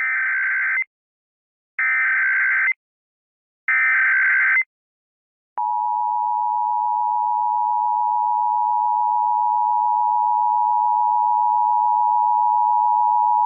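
Emergency Alert System opening: three one-second bursts of digital data tones (the SAME header), evenly spaced, then a steady two-tone attention signal held for about eight seconds.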